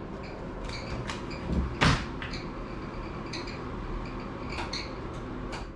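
A fan running with a bird-like squeak, short high chirps recurring about every second. Several clicks and knocks of furniture being handled come over it, the loudest a little under two seconds in.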